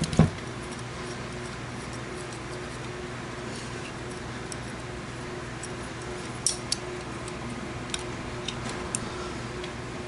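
Scattered small metallic clicks and a knock from handling and adjusting a knife in the Lansky sharpening clamp, its screws being turned, over a steady low hum.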